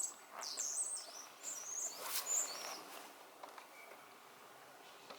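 Songbirds chirping and warbling in quick, high-pitched phrases during the first three seconds, then only faint outdoor background.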